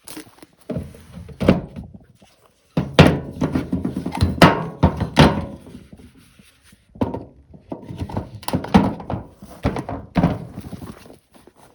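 Irregular knocks and thuds of roof work: panels and timber being handled and struck, in clusters with short pauses between them.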